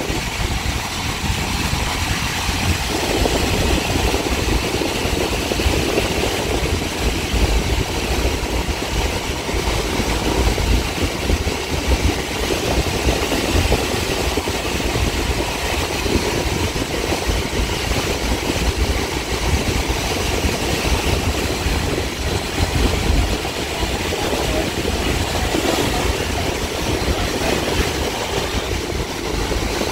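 Caltrain gallery cab car running at speed on a diesel-hauled push-pull train, heard from inside the leading cab: a steady low rumble of wheels on rail with running noise and no breaks.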